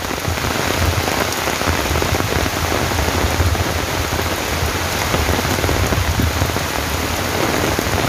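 Heavy rain pouring steadily onto dense forest foliage and a trail, a loud, even hiss that holds without a break.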